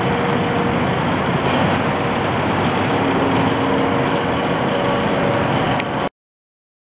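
Steady din of machinery running, with faint whining tones drifting in and out, cut off abruptly about six seconds in.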